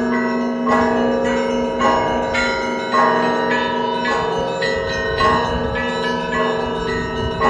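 Russian Orthodox monastery bells rung by hand (zvon): several bells struck in a quick repeating pattern, about two strikes a second, ringing over one another above the sustained hum of a larger bell.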